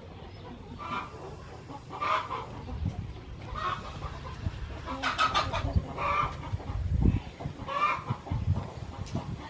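Domestic chickens clucking, short calls repeating every second or two, with a few low thuds between them.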